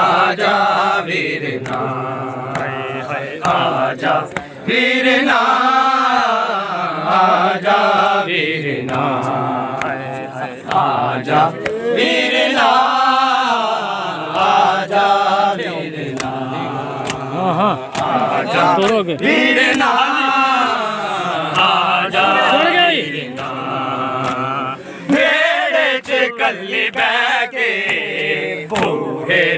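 A group of men chanting a Punjabi noha, a Shia lament for Muharram, with no instruments. They sing in long, wavering melodic phrases with brief breaks between them.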